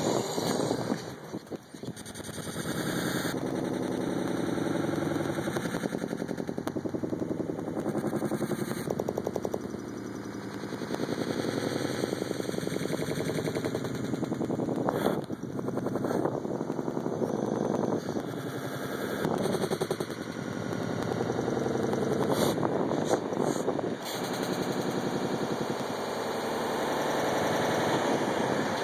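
A motor vehicle engine running close by with a rapid, even pulse, steady in level.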